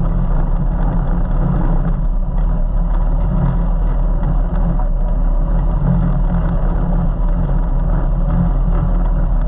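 Off-road vehicle engine running steadily as it drives, a constant low rumble without clear revving.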